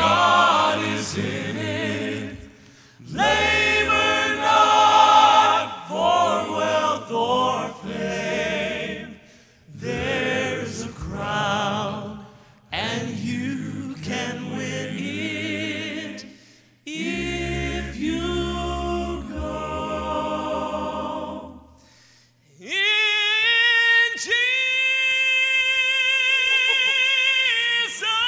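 Male gospel quartet singing in close four-part harmony. Short phrases are broken by brief pauses, then from about 22 seconds in the voices hold a long chord with vibrato.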